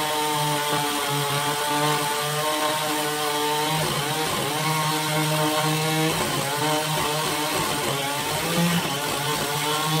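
Gasoline chainsaw running at high throttle and cutting into a large log. Its engine note wavers and dips a couple of times under the load of the cut.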